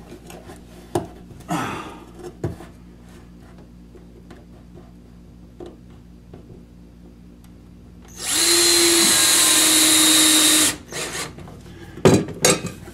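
Cordless drill driving a screw into the wall, one steady run of about two and a half seconds starting about eight seconds in. Short knocks and clicks of handling before and after it.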